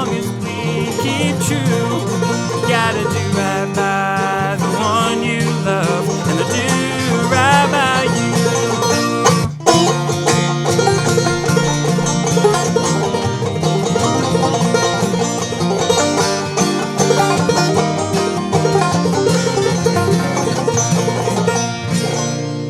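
Clawhammer banjo playing an instrumental passage of an old-time song, with a sharp click about ten seconds in. The last chord rings and fades away near the end.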